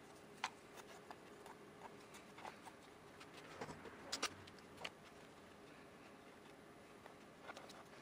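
Faint, scattered light clicks and taps of thin glue-coated hardwood strips being handled and pushed together on a wooden board.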